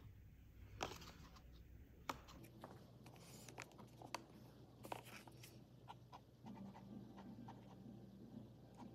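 Near silence with the faint scratch of a fine-nib fountain pen writing on paper, and a few soft clicks as the pen is picked up and handled in the first half.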